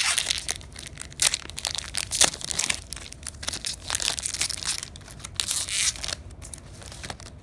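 Foil booster-pack wrapper crinkling and tearing as it is opened, in a series of crackling bursts, quieter near the end as the cards come out.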